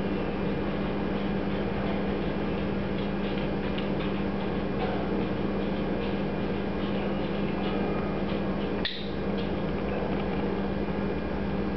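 Steady low electrical hum and hiss of a small room. Faint soft ticks as a tobacco pipe is puffed and handled, with one brief sharp click about nine seconds in.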